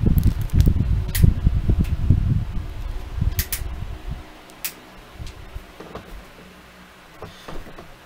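Midea FS4040 floor fan running on its third speed, its airflow buffeting the microphone as a loud, uneven low rumble for about the first four seconds, then easing off. A few sharp clicks come as the plastic fan head is handled.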